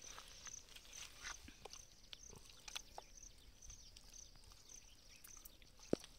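Hands squishing raw chicken pieces through a thick masala marinade: faint wet squelches and small clicks, with a sharper click near the end. An insect chirps in steady, even pulses throughout.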